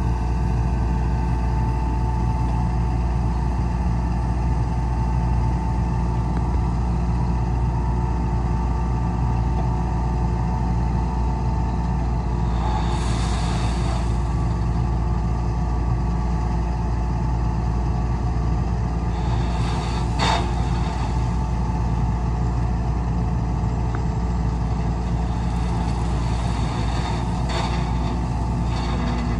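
Heavy diesel engine of earthmoving machinery running steadily at an even pitch, with a few short hissing or clattering noises over it and one sharp knock about two-thirds of the way through.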